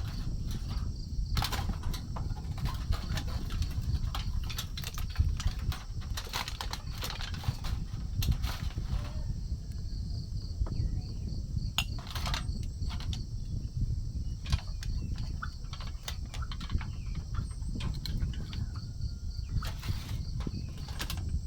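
Outdoor ambience: a steady low rumble with scattered clicks and rustles, and a faint, steady high drone that pulses evenly in places, like insects.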